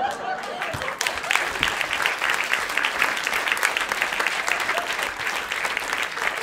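A large audience applauding, the clapping swelling about a second in.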